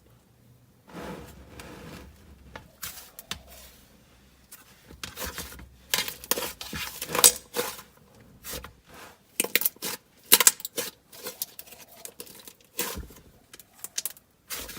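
A dense, creamy butter slime being poked and squeezed by hand, giving an irregular run of sharp little clicks and pops with short squishy crackles between them.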